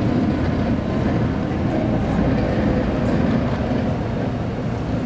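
Military trucks' diesel engines running as the vehicles drive past over a dirt track, a steady low rumble.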